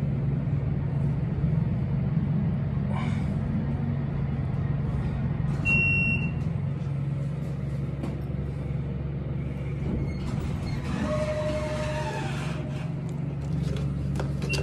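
Inside an Otis hydraulic elevator car during a ride: a steady low hum throughout, a short high electronic beep about six seconds in, and a brief lower tone around eleven seconds in.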